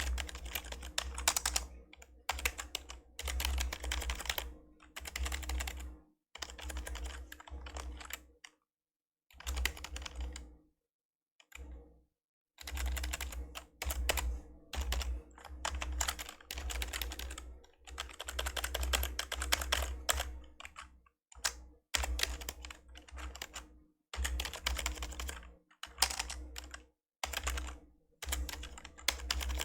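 Typing on an old membrane computer keyboard: bursts of rapid keystrokes broken by short pauses, with the longest pause about eleven seconds in.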